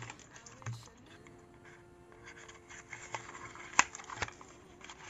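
Small cardboard box of a gel polish bottle being pulled open by hand: light rustling, with a sharp snap of the card flap almost four seconds in and a smaller one just after. A faint held musical tone runs underneath.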